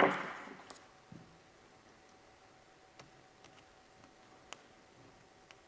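Small hand-work clicks from a headlight connector and its plastic parts being handled, likely the screwdriver on the connector pins. There is a sharp tap at the start with a short fading tail, then a few faint, scattered ticks.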